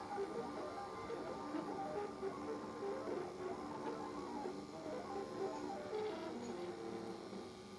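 Stepper motors of a DIY AxiDraw-clone pen plotter whining as it draws, in short steady tones that jump from pitch to pitch as the pen changes speed and direction.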